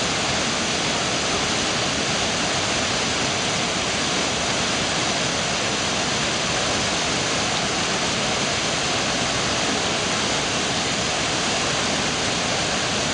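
Thi Lo Su waterfall, a large waterfall, pouring into its plunge pool: a steady, even rush of falling and churning water with no breaks.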